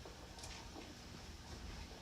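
Faint background hiss and low hum with a soft click about half a second in.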